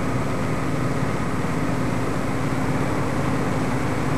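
Steady low hum with hiss, the unchanging background noise of an old film soundtrack.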